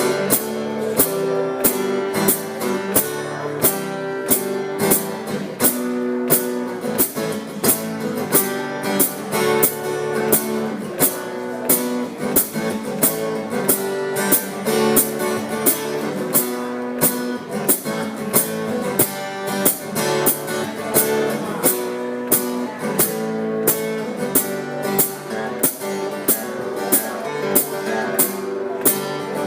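Acoustic guitar strummed in an instrumental break of a song, a steady rhythm of sharp strokes over ringing chords.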